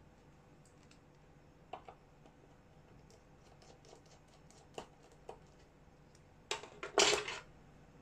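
Light metal clicks and ticks from the internal parts of a disassembled Wingun 708 CO2 revolver being handled. A louder burst of clicking and scraping comes near the end.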